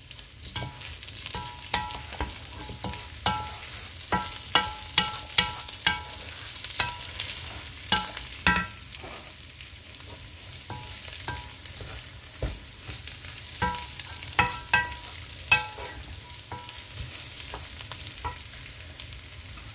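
Wooden spoon stirring rice and tomato paste in a nonstick frying pan, repeatedly knocking and scraping the pan so it rings briefly, over a steady sizzle of frying. The knocks come thick and fast through the first half, thin out, then bunch again about three quarters in.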